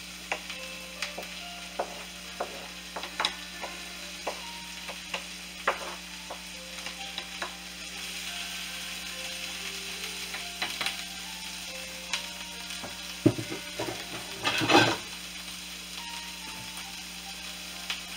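Chopped onion and green bell pepper sizzling in butter in a nonstick skillet, with a wooden spatula tapping and scraping against the pan as the vegetables are pushed in and stirred. A louder scrape comes about three-quarters of the way through.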